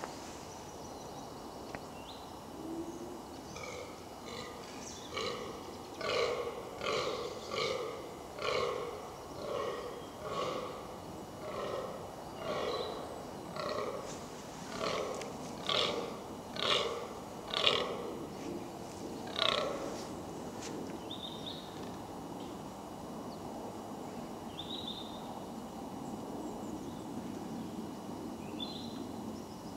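Fallow deer buck giving its rutting groan: a run of short, belching groans, about one a second, that carries on for some fifteen seconds and then stops. A few short bird chirps follow.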